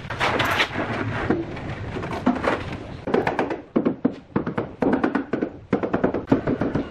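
A rubber mallet tapping a ceramic tile to bed it into mortar on a concrete cabinet side: a quick run of knocks in the second half, after a denser noisy stretch.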